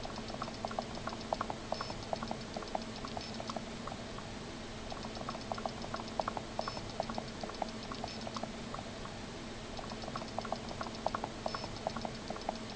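Rapid, irregular light clicking and tapping that comes in clusters and pauses, over a steady low hum.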